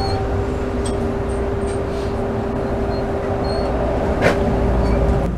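A Toronto TTC streetcar under way, heard from inside: a steady rumble of wheels on the rails with a steady hum running through it. A single sharp click comes about four seconds in.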